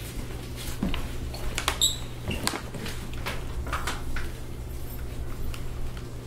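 A steady low hum with scattered small clicks and rustles.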